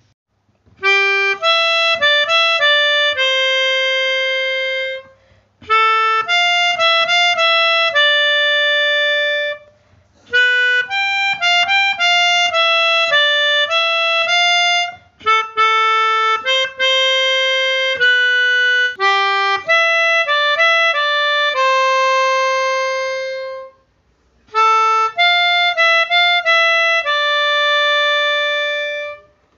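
Melodica (pianika) playing a single-line melody in six phrases, each ending on a long held note, with short pauses between phrases.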